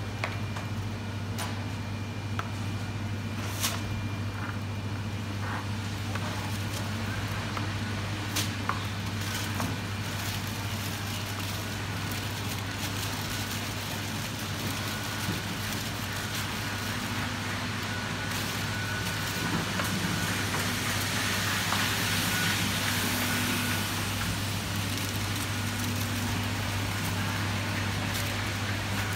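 Steady supermarket background: a constant low hum under a haze of noise, with a few scattered clicks and knocks.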